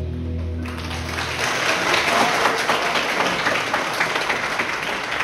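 Congregation applauding in a large hall, dense clapping that starts under a second in, while the music's last held chord dies away about a second and a half in.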